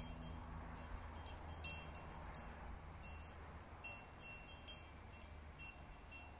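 Soft chimes tinkling in irregular strikes, each ringing briefly, over a low steady hum.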